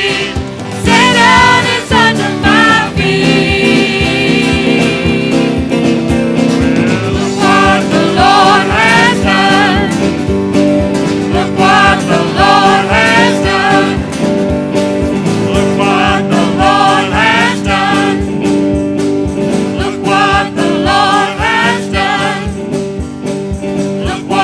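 Gospel-style congregational singing with instrumental accompaniment: voices carrying a melody over a steady band backing.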